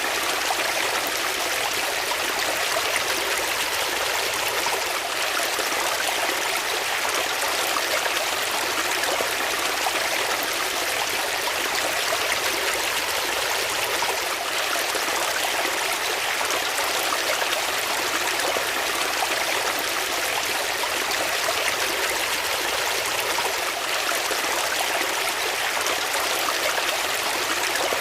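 Water flowing steadily over rocks, a stream's continuous rushing and trickling with no pauses or changes.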